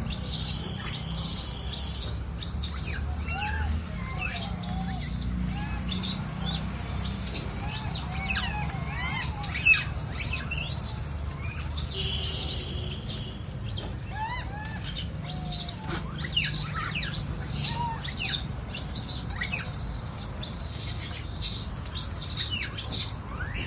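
Many overlapping high-pitched chirping and squeaking calls that keep going, over a low steady hum, with one sharper loud call about ten seconds in.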